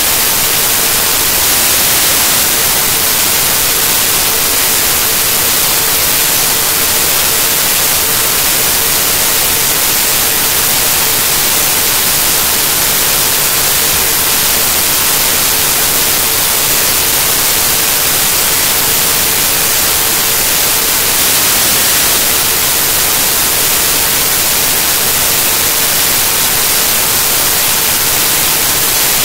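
Loud, steady static hiss with a faint steady tone underneath.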